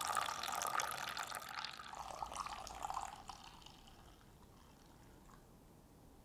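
Coffee poured from a stainless-steel stovetop moka pot into a cup: a splashing stream that runs for about three seconds and then stops.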